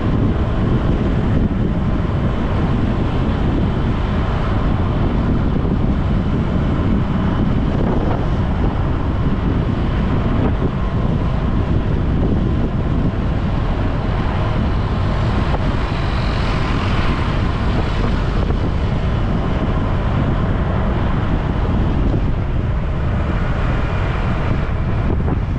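Steady rush of wind buffeting the microphone mixed with engine and road noise while riding through city traffic.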